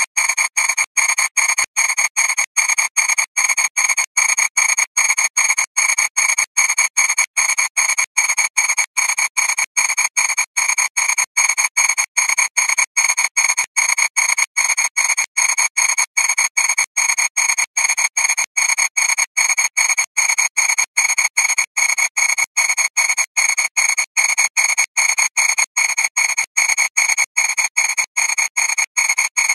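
Harsh, buzzing digital noise with several fixed high pitches, chopped into even pulses about two or three times a second. It is the video's soundtrack mangled by over ten thousand repeated exports.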